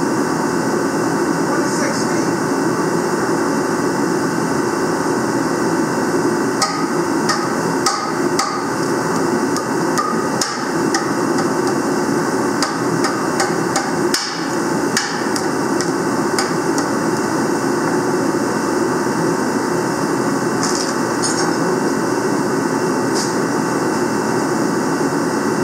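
Rubber mallet striking on a John Deere 4010 engine block during an overhaul: clusters of sharp taps about a quarter of the way in, again in the middle, and a few more near the end. A steady background noise runs underneath.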